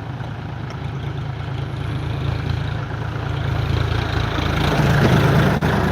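Motor vehicle engine running steadily with road noise, growing louder about four seconds in.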